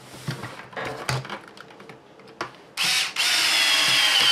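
Small cordless drill-driver whirring as it drives a screw into an RC truck's plastic body and chassis. A short burst comes near the three-second mark, followed by a steady run of under two seconds. Before it there are light clicks from handling the plastic parts.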